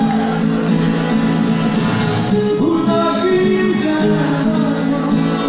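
A man singing live to his own acoustic guitar accompaniment, the guitar playing held chords under the sung melody.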